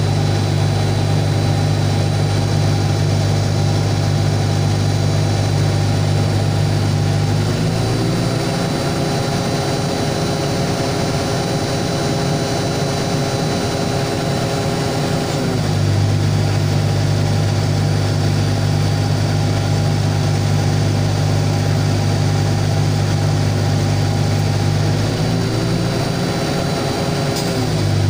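Hydraulic pile-driving machine's engine running steadily with a strong low hum. Its note changes twice: for about eight seconds from about eight seconds in, and again for about three seconds near the end.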